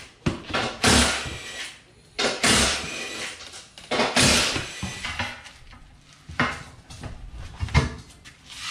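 Hand tire tools prying a used racing tire off its wheel, metal bar against rim and rubber: a run of irregular thumps, clanks and scrapes, some with a heavy thud.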